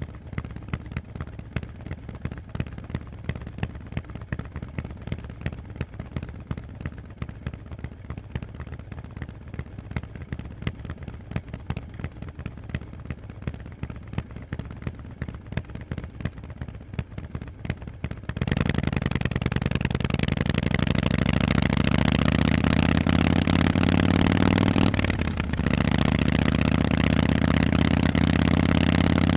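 Harley-Davidson Forty-Eight's air-cooled 1200 cc V-twin through loud Vance & Hines exhausts, idling. About 18 seconds in it gets much louder as the bike pulls away and accelerates, the engine note climbing, dipping briefly at a gear change a few seconds later, then climbing again.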